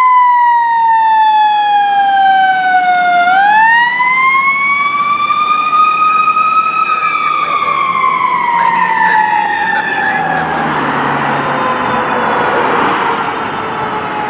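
Federal Signal Q2B mechanical siren on a 2015 KME fire engine winding down in pitch, spun back up about three seconds in, then coasting down again. It fades about ten seconds in, and a broad rushing noise takes over near the end.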